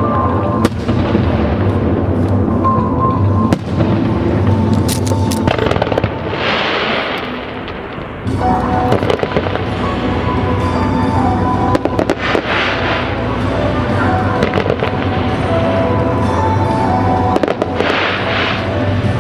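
Fireworks going off over loud accompanying music: sharp bangs, with three hissing, crackling bursts about six seconds apart.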